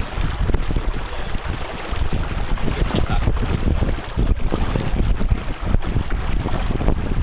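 Wind buffeting the microphone on a boat: a steady, loud rush of noise with heavy low rumble.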